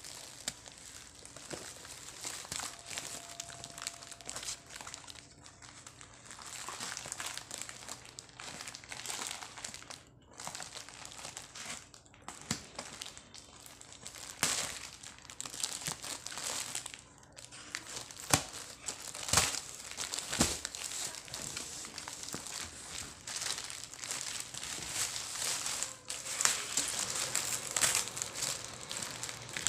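Plastic and cardboard packaging being unwrapped by hand: irregular crinkling and rustling of plastic wrap and bag, with a few sharp clicks in the second half.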